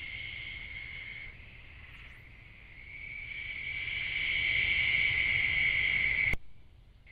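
A night-time chorus of insects trilling steadily in one high pitch, growing louder about three seconds in, then cutting off abruptly about six seconds in and carrying on fainter.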